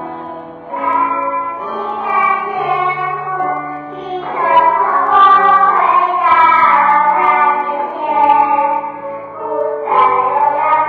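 A group of young children singing a song with instrumental accompaniment; the singing grows louder about four seconds in.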